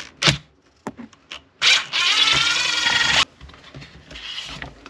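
Parts of a chainsaw being worked loose by hand: a few sharp clicks, then a loud, harsh scraping rub lasting about a second and a half, then quieter handling noise.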